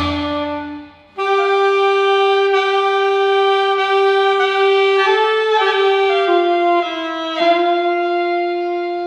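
Instrumental music: a slow melody of long held notes on a saxophone-like wind instrument, which enters about a second in after the band fades out and ends on a long sustained note.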